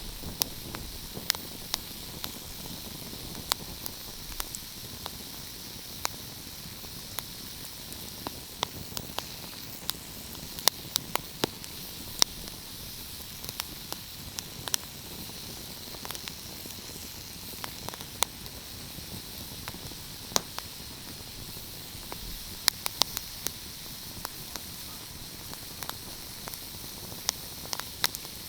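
Wood fire crackling: many sharp, irregular pops and snaps over a steady high hiss.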